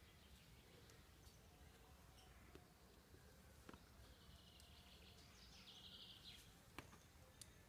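Near silence: faint outdoor ambience with a distant bird trilling softly through the second half, and a few faint clicks.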